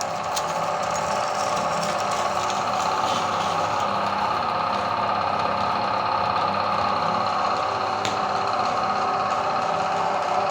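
Electric meat grinder's motor running steadily while grinding ice cream, with a single sharp click about eight seconds in.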